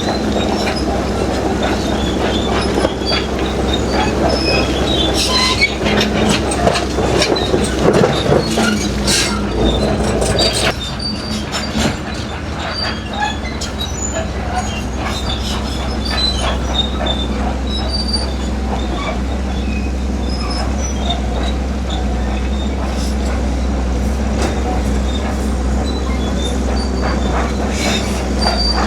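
Crawler bulldozer working: its diesel engine droning steadily while the steel tracks clank and squeal. It grows louder and busier for several seconds, then eases off about ten seconds in.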